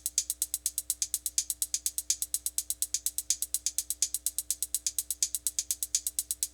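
Fast, perfectly even ticking, about seven sharp ticks a second, over a faint steady tone: the machine-like rhythm track that opens a song.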